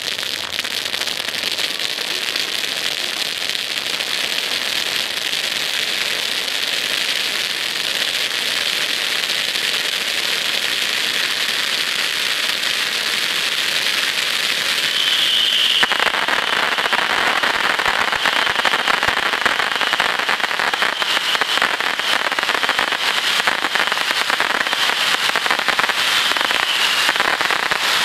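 A row of firework ground fountains hissing steadily as they spray sparks. About halfway through the sound suddenly grows louder and denser and turns to crackling, with a faint high whistle coming and going after that.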